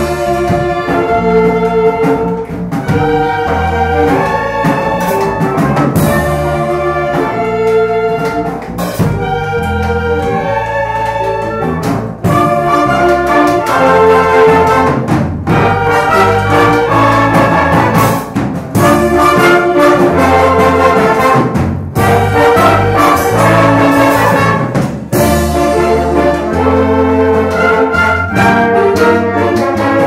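A brass band of trumpets and trombones playing a tune together over a low bass line, in phrases with short breaks between them.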